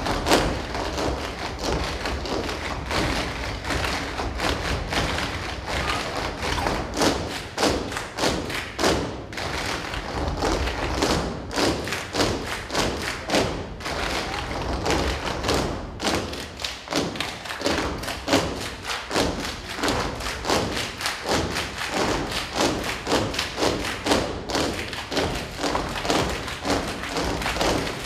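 Tap shoes of a large group of dancers striking a stage floor in unison, a fast rhythmic run of sharp taps and stamps with a few short breaks.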